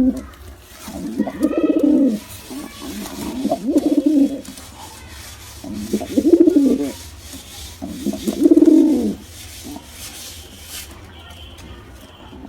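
Pigeons cooing: about four low, throaty coo phrases, each about a second long and roughly two seconds apart, then quieter for the last few seconds.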